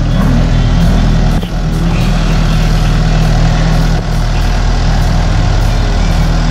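Kubota farm tractor's diesel engine running steadily.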